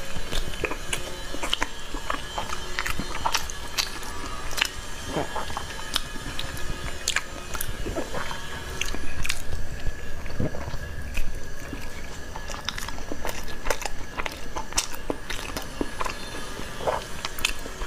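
A person chewing and biting into soft spicy food close to the microphone, with many irregular wet mouth clicks and smacks. A faint steady high tone runs underneath.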